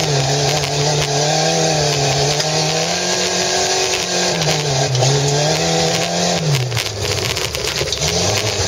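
Volvo 240's engine heard from inside the cabin as the car is driven across a field. Engine speed wavers up and down, then falls away about six and a half seconds in and climbs again near the end.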